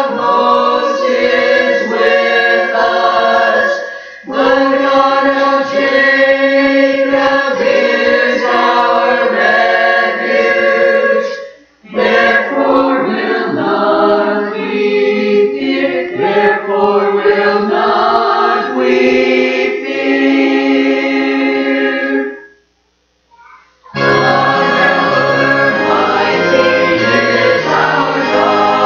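Church choir singing a piece in parts, with short breaks between phrases and a brief silence about two-thirds of the way through. After the silence, low keyboard notes come in under the voices.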